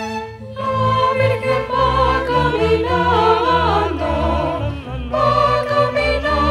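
Women's voices singing a Spanish Christmas carol (villancico) with vibrato, over a string ensemble holding low notes. There is a short break between sung phrases about five seconds in.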